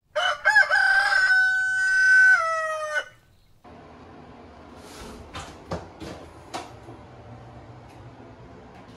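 A rooster crowing a single cock-a-doodle-doo: a few short rising notes, then a long held note that drops in pitch at the end and stops about three seconds in. After that comes a faint steady room hum with a few light knocks.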